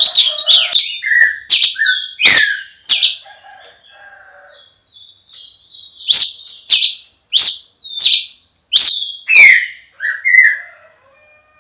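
Songbird singing: a fast run of high chirps, then loud, sharp down-slurred notes about once a second with softer twittering between, falling silent near the end.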